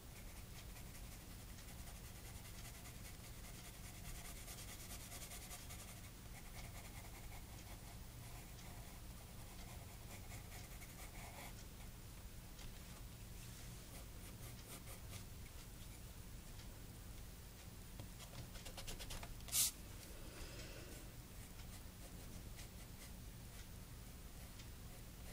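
Pencil scratching faintly across sketchbook paper in short, quick strokes, with one sharp tap about three quarters of the way through.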